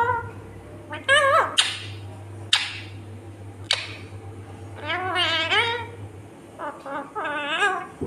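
Indian ringneck parakeet calling: a series of short chattering squawks, with a longer warbling call about five seconds in and two more calls near the end. Two sharp clicks fall between the calls, over a steady low hum.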